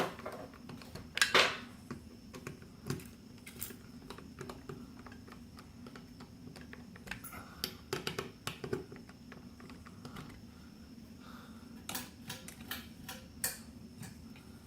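Scattered small clicks and taps of metal hardware being handled as bolts and washers are fitted into a ceiling fan's mounting bracket, with a sharper knock about a second in.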